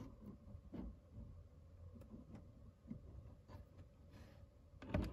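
Faint handling noise from a doll box being held and turned: scattered soft clicks and rubs, with one louder brief bump just before the end.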